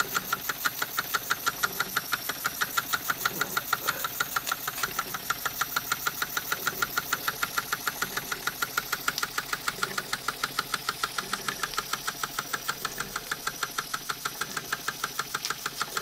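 A circa-1957 Wilesco toy steam engine running steadily, with an even beat of about five strokes a second.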